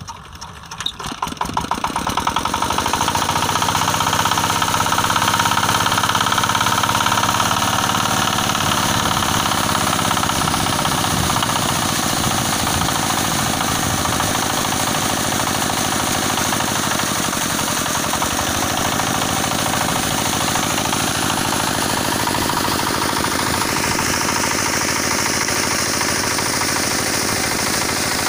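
Single-cylinder diesel engine of an irrigation water pump starting up, its knocks quickly speeding up over about two seconds until it runs steadily under load. The rush of the pumped muddy water splashing out grows louder near the end.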